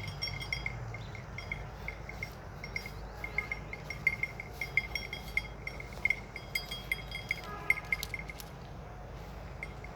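Small metal bells on grazing cows clinking and jingling irregularly, many short rings in quick, uneven succession.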